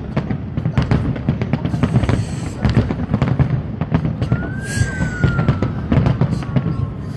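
Fireworks going off in a rapid, irregular barrage of bangs and crackles with a deep rumble. About four seconds in, a whistling tone rises briefly, then slowly falls.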